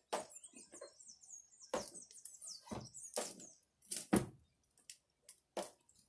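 Clothes being pushed and settled into a top-loading washing machine's drum: a string of short soft knocks and rustles. Over the first three seconds a high, thin, wavering chirping runs in the background.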